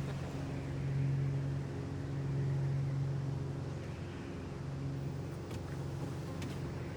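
Small propeller plane's engine droning steadily, a low even hum that swells slightly now and then.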